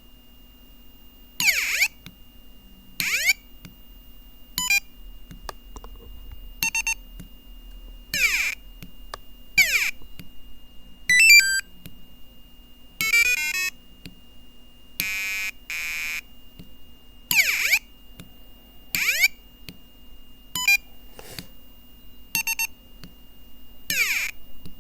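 Piezo buzzer on an Arduino Nano playing a run of electronic Star Wars-style sound effects: sharp falling zaps, short beeping bursts, a fast warbling run of stepped notes and a lower buzzing tone, each effect short and separated by pauses.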